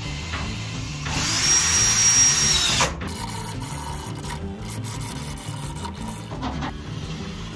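Power drill driving a screw through plasterboard into a metal stud: the motor whines up in pitch and holds for about two seconds, then stops abruptly.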